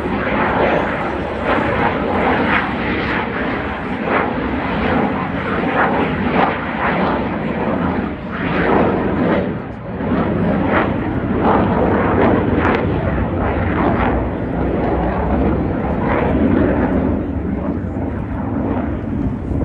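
Jet noise from a Dassault Rafale's twin Snecma M88 turbofan engines as the fighter flies its display overhead: loud and ragged, easing briefly about ten seconds in.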